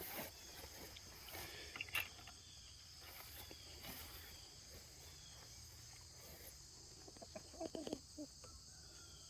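Faint, steady high-pitched chorus of insects, with scattered soft clicks and knocks and a small cluster of them a little before the end.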